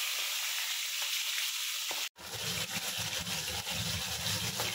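Small whole tengra fish frying in hot oil in a wok, a steady sizzle. It drops out for an instant about two seconds in, then carries on with more low rumble beneath.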